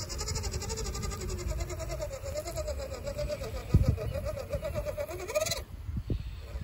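RC crawler's WPL 370 electric motor and two-speed gearbox whining under load on a climb, the pitch wavering with the throttle. It rises briefly and cuts off about five and a half seconds in, with a single thump a little before that.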